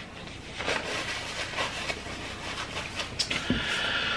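Soft rubbing of a paper napkin across the mouth and face, with the small wet clicks and smacks of a person chewing food.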